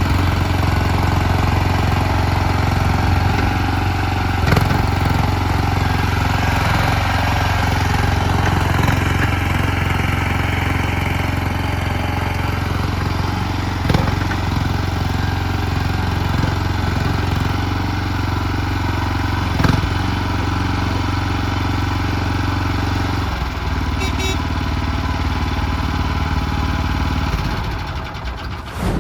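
A mini skid steer loader's engine runs steadily, with a few brief knocks along the way. Its note shifts about two-thirds of the way through and fades near the end.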